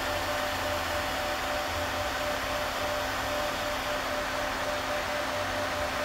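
Three cooling fans on a Peltier cooler's aluminium heatsink running steadily under load, a steady airy rush with a faint steady whine.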